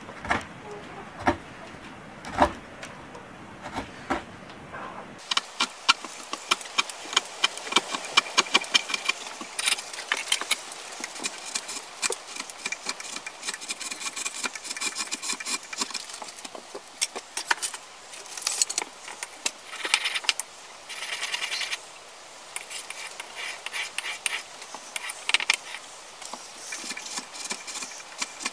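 A hand carving blade paring shavings off a wooden kuksa cup held in a vise. A few separate knocks first, then from about five seconds in a fast run of short, sharp scraping cuts, in clusters, to the end.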